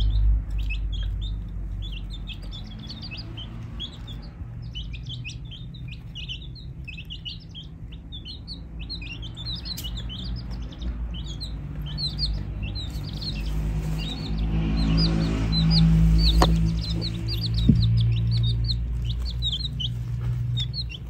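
A group of baby chicks peeping nonstop, many short, high, falling cheeps overlapping one another, over a low rumble that grows louder past the middle.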